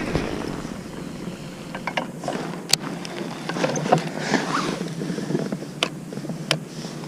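Rustling and handling noise in a small fishing boat, with scattered sharp clicks and knocks, the clearest a little under three seconds in and again near the end.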